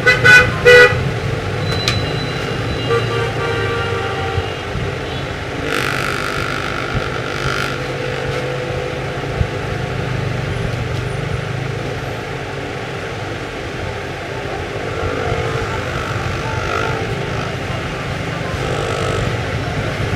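Street traffic with vehicle horns honking over a steady rumble. Two loud short honks come right at the start, another long honk comes about six seconds in, and fainter honks come later.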